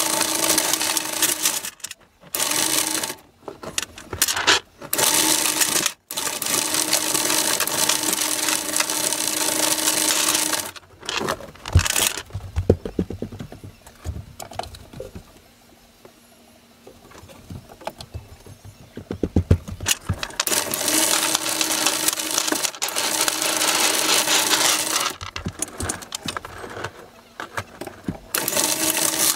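Anchor chain rattling as it drops into a chain locker, in several loud spells broken by short stops, with a steady hum under the loud spells. In a quieter stretch in the middle, single links clank one after another.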